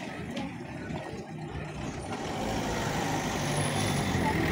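A motor vehicle's engine running with a steady low hum, growing louder from about halfway through as it draws near.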